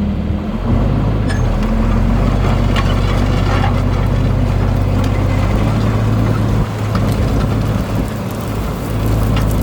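Tractor engine running steadily under load with a low, even drone, getting louder about a second in as it pulls away.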